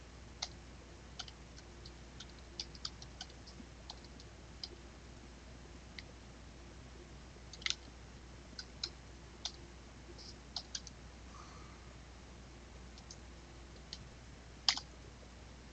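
Computer keyboard typing: sparse, irregular keystrokes, faint, with two louder clicks, one about eight seconds in and one near the end.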